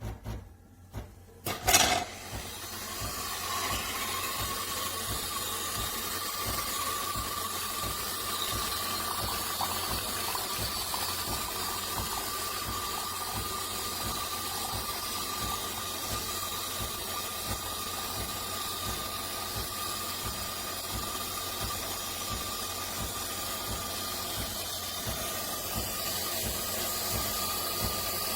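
A few sharp clicks, then a De'Longhi Rivelia automatic espresso machine hissing steadily with steam, with a faint whistling tone held throughout.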